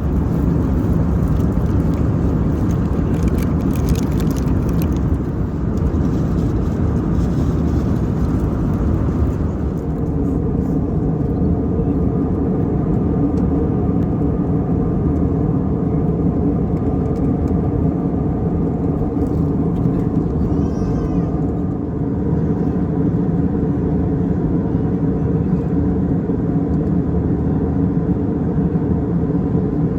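Airbus A320 cabin noise in flight: a steady drone of the jet engines and rushing air. About ten seconds in, the higher rushing sound drops away, leaving a steadier low hum.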